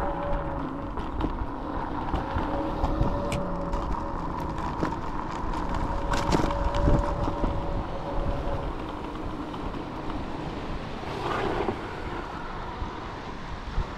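Wind rumbling on the microphone while moving, with a steady hum that comes and goes and a few scattered clicks and knocks.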